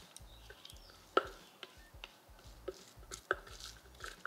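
Scattered soft taps and clicks as chopped green seasoning is tipped and scraped out of a plastic food processor bowl onto raw rabbit pieces in a glass bowl, with the sharpest tap about a second in.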